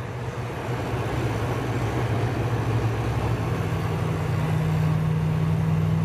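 Elkay water cooler's refrigeration compressor running with a steady electric hum, a higher hum tone joining about halfway through.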